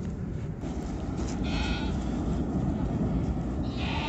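Livestock bleating twice, about a second and a half in and again near the end, over a steady low rumble.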